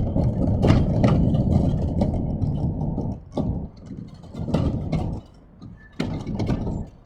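Wind buffeting the microphone: a low rumble for about three seconds, then coming and going in a few gusts.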